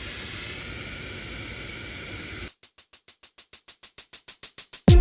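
Steady static-like hiss. About halfway through it cuts off into a rapid, even stutter of short pulses, about eight a second, that grows louder like a build-up leading into music.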